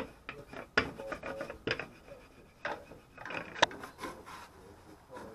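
Wooden rolling pin rolling out flatbread dough on a worktop, a rubbing sound broken by a few sharp knocks about once a second.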